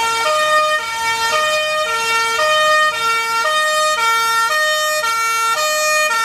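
Fire-rescue vehicle's electronic siren sounding a repeating pattern of stepped tones, a few notes cycling about once a second.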